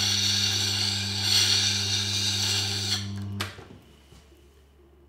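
Steel woodturning scraper ground against the turning stone of a Tormek sharpening machine: a steady grating hiss over the machine's motor hum, as the heel of the scraper's bevel is ground away. The grinding stops about three seconds in and the hum cuts off soon after, leaving only faint room tone.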